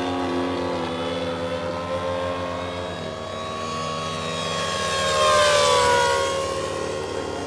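Twin electric ducted fans of a GWS Me 262 model jet whining steadily in flight. About five seconds in the model passes close: the whine swells and its pitch drops as it goes by.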